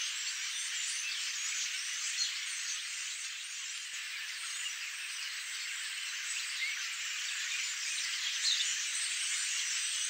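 Large flock of common starlings calling together: many high chirps and squeaks blending into one continuous chatter.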